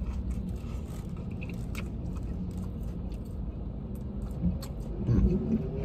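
Chewing and mouth sounds from eating a fried chicken sandwich, with small wet clicks, over a low steady hum.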